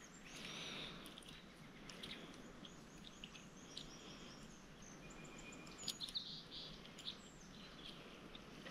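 Faint birdsong over quiet outdoor background noise, with a few short ticks about six seconds in.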